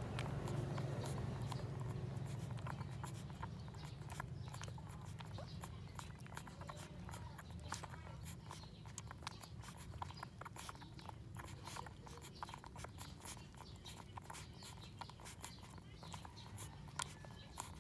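Newborn puppies suckling at their mother's teats: many small wet smacking clicks at an irregular pace. A low hum runs underneath, louder over the first few seconds and then fading.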